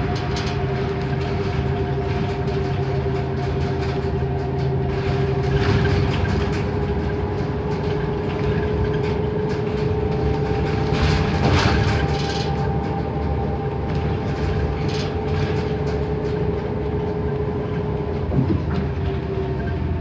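Cabin sound of a NABI 31 LFW transit bus under way: the drivetrain of its Cummins Westport ISL G natural-gas engine and Allison B300R transmission hums with a steady whine over road rumble, with occasional rattles and knocks from the body and fittings.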